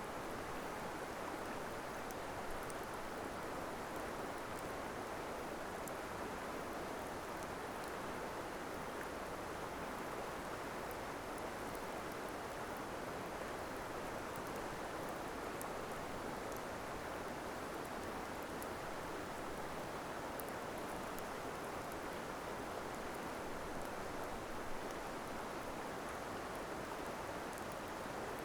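Campfire crackling faintly with scattered small pops, over a steady rushing background noise.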